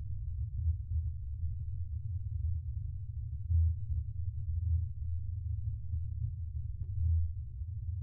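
Spaceship ambience sound effect: a steady, deep, low hum that swells a little in loudness now and then.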